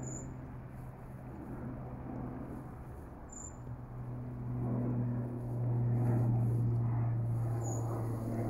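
Distant engine hum, steady and low, swelling louder about halfway through, with three short high chirps a few seconds apart.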